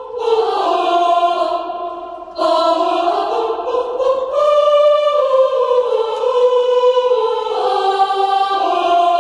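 Sampled choir voices from a Kontakt vocal library singing wordless 'aah' chords: held notes moving slowly from chord to chord, with a short dip about two seconds in.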